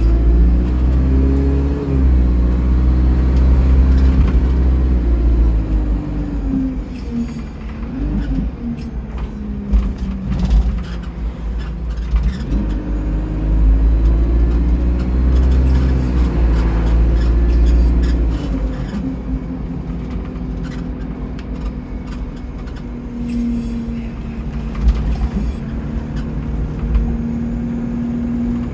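Bus engine accelerating twice, each pull with a high whistle that rises and falls along with the engine: a leaking turbocharger. Between the pulls the engine eases off amid light rattles and clicks.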